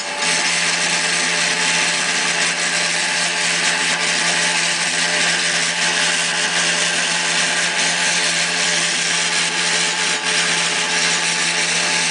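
CP Rail GP38-2 diesel locomotive making an unusual, loud, steady mechanical noise: a constant rasping noise over a low hum with a steady whine. It is a sound the recordist has never heard a GP38-2 make.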